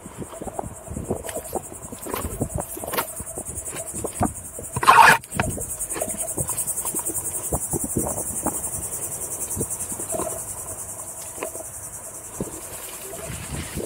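Insects buzzing steadily at a high pitch in the scrub, strongest from about five seconds in, over scattered knocks and rattles from the ride along the rough trail. About five seconds in, one short, loud thump stands out.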